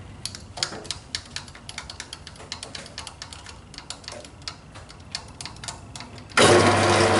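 A run of light, irregular clicks and ticks, then, about six seconds in, a metalworking lathe is switched on and runs steadily with a hum, noticeably louder than the clicking, at about 560 rpm.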